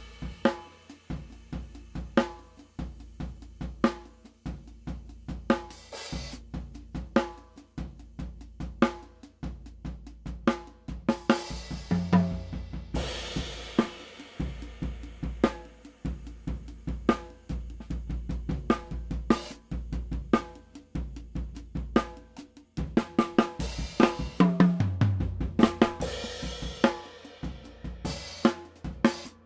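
Acoustic drum kit played in a steady groove of kick, snare, hi-hat and ride cymbal, with tom fills and a crash about 12 and 24 seconds in, heard through stereo ribbon overhead microphones. The sound cuts abruptly twice, about 13 and 23 seconds in, as the recording switches between the Nude stereo ribbon microphone and a pair of Coles 4038s.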